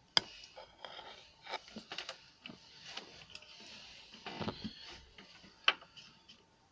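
Small clicks, taps and rustles of a circuit board and test-lead wires being handled on a workbench, with a sharp click just after the start and another near six seconds.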